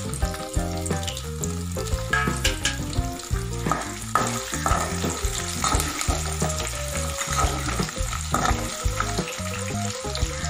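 Garlic cloves sizzling in hot oil in an aluminium kadai, stirred with a metal spoon that scrapes and taps the pan now and then. Background music plays underneath.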